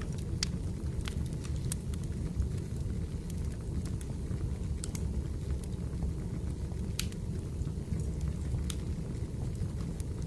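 Firewood burning: a steady low rumble of the fire with scattered sharp crackles and pops.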